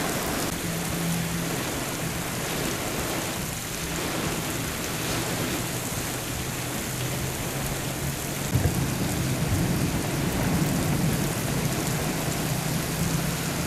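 Torrential rain pouring onto pavement, a dense steady hiss of splashing drops, with a low steady hum underneath that grows a little louder from about eight seconds in.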